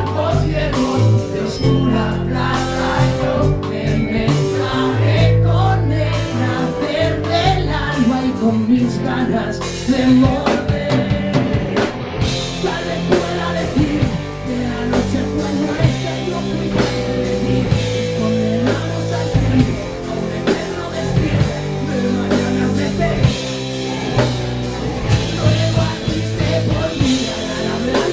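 Live rock band playing loud and without a break: electric guitars and a drum kit with cymbals, and a male singer singing into a microphone over them.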